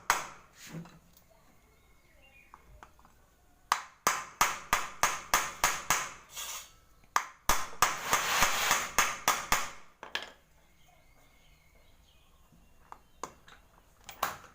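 A hammer striking a metal workpiece in runs of sharp blows, about four a second, with a denser, louder run of blows in the middle. The workpiece is most likely the motorcycle clutch housing being tightened up.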